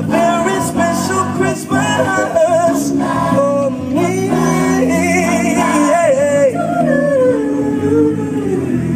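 Gospel vocal group singing live in harmony through stage microphones and speakers, with long sliding vocal runs.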